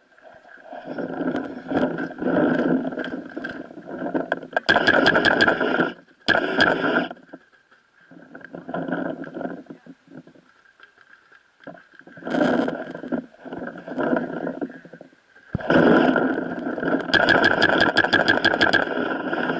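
Paintball marker firing rapid strings of shots, about five a second, twice, between bursts of rushing, rustling noise.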